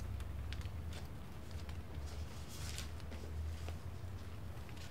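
Soft rustling and a few light ticks of things being handled, over a low steady hum.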